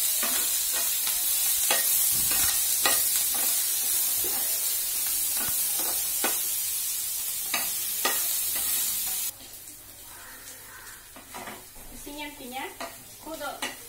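Chopped vegetables sizzling in hot oil in a frying pan while a metal spatula stirs and scrapes, with short clicks as it hits the pan. About nine seconds in the sizzle drops suddenly much quieter, and the stirring and scraping go on softly.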